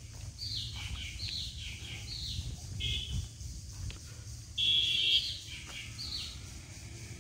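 A bird calling repeatedly, each note sliding down in pitch, roughly once a second, with a harsher buzzing call about two thirds of the way in that is the loudest sound. A low rumble runs underneath.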